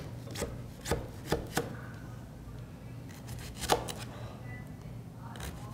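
A kitchen knife cutting through a leek onto a thin plastic cutting mat: several sharp, irregularly spaced taps as the blade goes through, the loudest a little over halfway.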